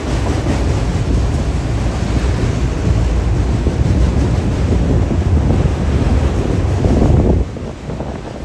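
BNSF autorack freight train rolling past, a loud steady rumble of cars and wheels with wind buffeting the microphone. The rumble drops off suddenly about seven seconds in.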